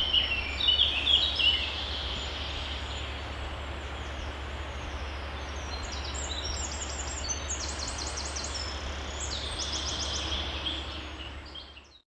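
Small birds singing and chirping in the background: short chirps at first, then high, rapid repeated trills, over a steady low hum.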